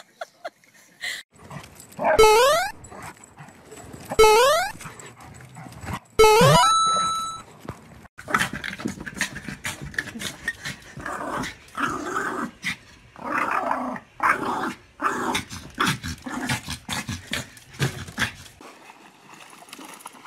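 Three loud sharp cries about two seconds apart, each falling in pitch, then a small dog growling and yapping in rapid rough bursts.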